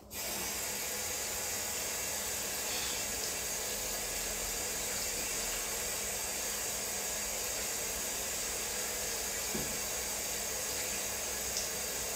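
Kitchen faucet running steadily while a raw chicken breast is rinsed under it; the water comes on suddenly at the start.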